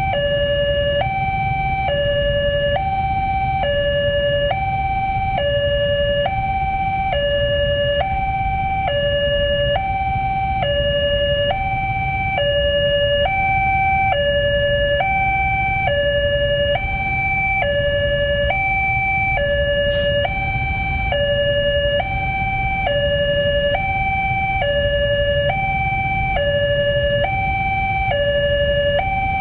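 Railway level-crossing warning alarm sounding an electronic two-tone signal that switches steadily between a higher and a lower tone about twice a second, the signal that a train is approaching and the barriers are down. A low rumble of idling traffic runs underneath.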